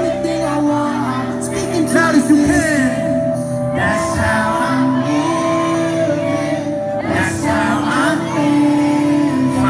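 Live hip-hop performance over a PA in a large hall: sustained synth chords with a vocalist singing over them, and crowd voices shouting.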